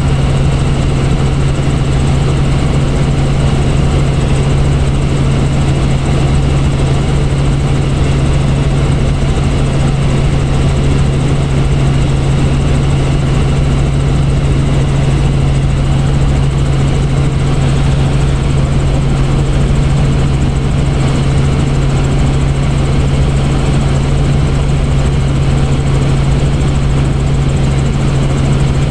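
Helicopter in cruising flight heard from inside the cabin: a loud, steady low drone of engine and rotor that does not change.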